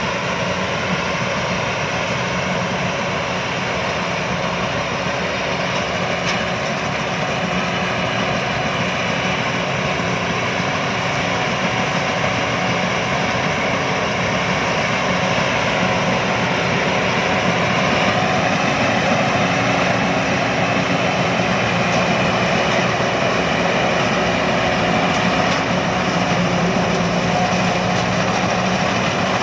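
Rice combine harvester's engine running steadily, a little louder from about halfway through.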